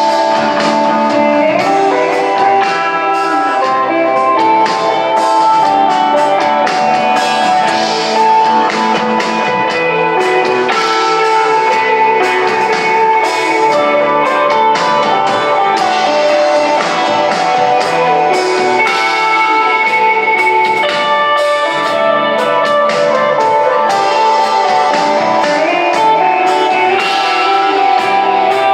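Live instrumental desert rock band playing: electric guitar holding long ringing melodic notes over drums with cymbal hits, steady and loud throughout.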